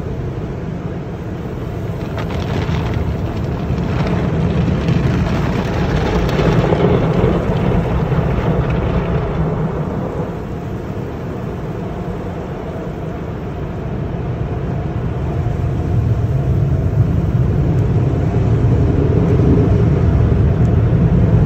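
Automatic car wash heard from inside the truck cab: a steady rushing of water spray and wash machinery. It grows louder a couple of seconds in, eases off about halfway, and builds again near the end.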